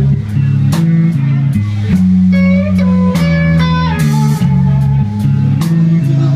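Live band playing an instrumental passage on electric guitar, bass guitar and drum kit, with steady drum hits under the bass line and a higher, bending guitar line in the middle.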